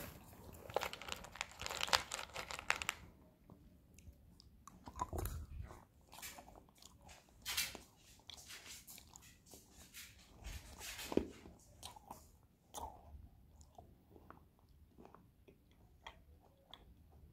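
Crunchy chewing close to the microphone, coming in bouts of crackly crunches and thinning out toward the end.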